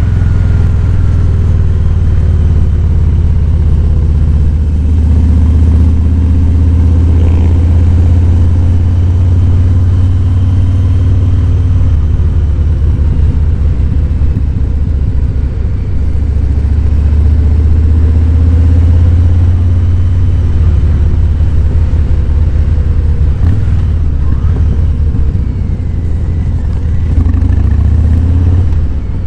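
Harley-Davidson Fat Boy's Milwaukee-Eight 107 V-twin running at riding speed. Its deep note swells under throttle and eases off twice.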